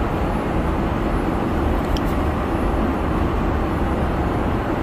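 Steady cabin noise of an airliner in flight: an even, deep rush of engines and airflow.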